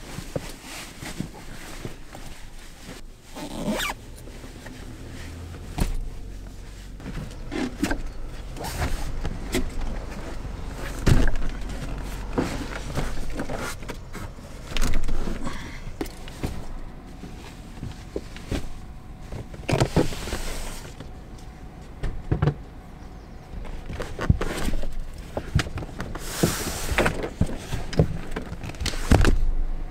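A busy run of knocks, clicks and rustles, as of things being handled and moved about, over a low steady hum that comes in about six seconds in.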